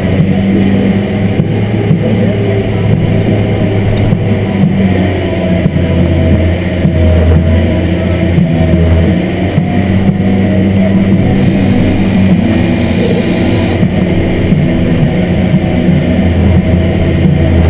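Large tractor's diesel engine running steadily under load, heard from inside the cab while it pulls dirt scraper pans. It is a loud, even low drone throughout.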